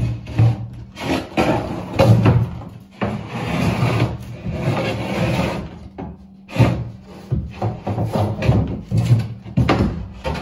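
Okoume plywood bulkhead panel knocking and scraping against the fibreglass hull as it is worked into place, with a longer rubbing scrape in the middle.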